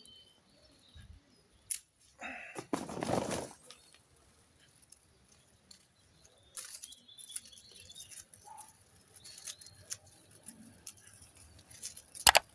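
Dry hydrangea stems and leaves rustling as they are handled and pulled, with a few sharp clicks of secateurs snipping stems, the loudest near the end. Faint bird chirps behind.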